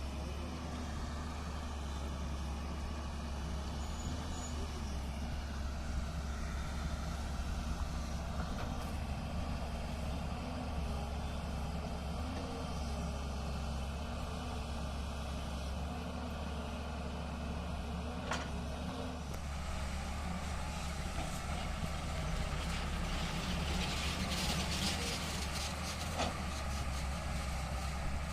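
Tata Hitachi excavator's diesel engine running steadily as it works, a constant low hum, with a couple of sharp knocks in the second half.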